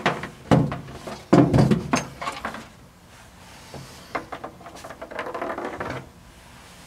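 Clicks, knocks and clatter of hand tools and small parts being handled on a workbench, loudest in the first two seconds, with a short stretch of rustling near the end.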